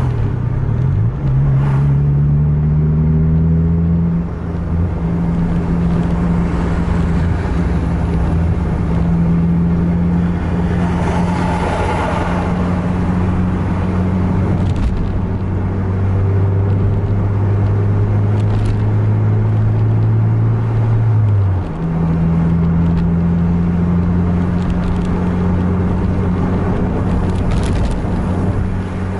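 Car engine droning steadily, heard from inside the cabin while driving. Its pitch jumps higher about a second in and again about 22 seconds in. A rush of road noise swells and fades around 12 seconds in.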